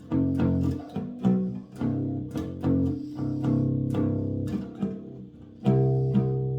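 Bass guitar played freestyle, plucked in an uneven run of ringing notes and harmonics rather than a song. It drops quieter for a moment, then a loud sustained note rings out near the end.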